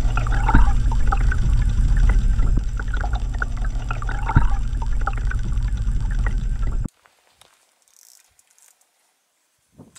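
Water rushing and bubbling past an underwater action camera's housing as it moves through the water: a steady low rumble with crackling and two sharp clicks. It cuts off abruptly about seven seconds in.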